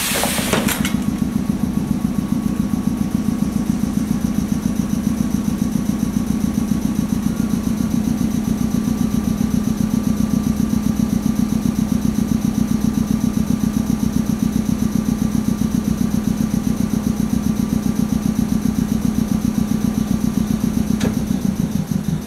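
Air compressor of a standing Choshi Electric Railway railcar running with a loud, rapid, steady throb, with one sharp click near the end.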